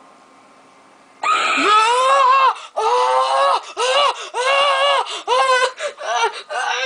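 A sudden loud scream about a second in, then a string of short, high-pitched shrieks and cries: a person shrieking in fright at a jump-scare.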